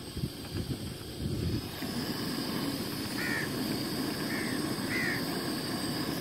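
A crow cawing three short times in the second half, over a steady low background rumble.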